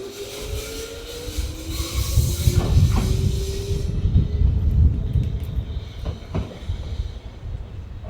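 Hanshin electric train running past, its traction motors whining in a tone that rises in pitch as it accelerates. Heavy wheel rumble is joined by a few sharp clacks over rail joints, and the sound fades toward the end.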